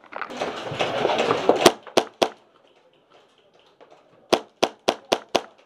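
Airsoft guns firing single shots as sharp cracks: two or three after a second or so of rustling movement, then, after a short quiet gap, a quick string of about six near the end, roughly four a second.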